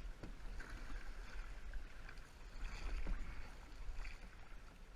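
Canoe paddle strokes splashing through river water, with a few light knocks, over a steady low rumble.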